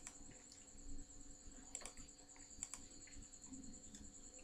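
A few faint computer mouse clicks, two of them close pairs, over a faint steady high-pitched whine.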